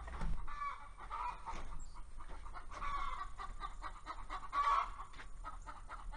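Backyard chickens clucking, a handful of separate calls spread a second or two apart.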